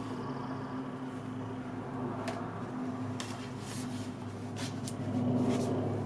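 Pages of heavy hot-pressed watercolour paper in a hand-bound journal being turned and handled, with a few light ticks and rustles and a fuller rustle about five seconds in, over a steady low hum.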